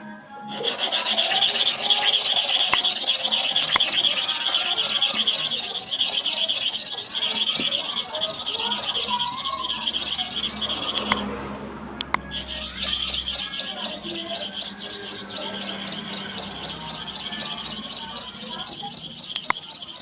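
Hair clipper blade being rubbed back and forth against an abrasive surface to sharpen and polish it: a steady scraping rasp that stops for a moment just past halfway, then carries on.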